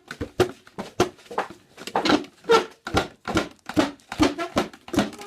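Chair legs scraped across a floor in quick rhythmic strokes, about two to three a second, each a short squeaky scrape, some with a pitched tone.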